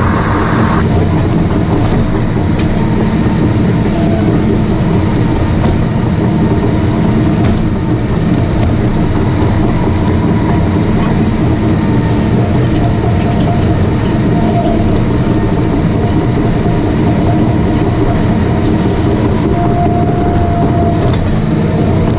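Caterpillar D5 bulldozer working: its diesel engine running steadily under load, with the clank and rattle of its steel tracks as it pushes dirt to flatten a rough road.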